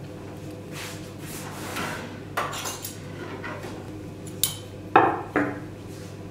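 Clinks and knocks of a metal spoon and bowls being handled on a table, with soft rustling early on. A few separate sharp clatters follow, the loudest about five seconds in.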